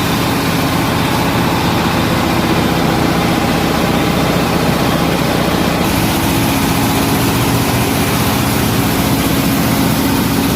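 Rice huller (selep padi) machine running steadily with a loud engine drone while hulling paddy into rice. About six seconds in the sound shifts, with more high hiss above the drone.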